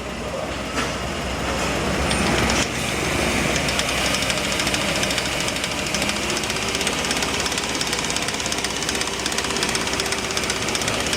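A car's running drivetrain with a damaged tripod joint on the drive shaft, making a rapid, even knocking over the engine that grows steadier about three seconds in. This is the typical noise of a worn tripod joint.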